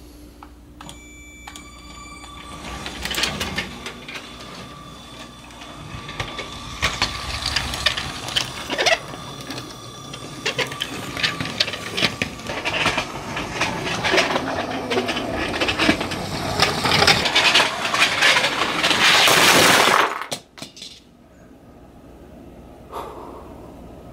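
LEGO train running on plastic track: a steady high motor whine with irregular clicking and clattering of wheels and plastic parts. The clatter builds to a loud rushing noise that cuts off suddenly about twenty seconds in.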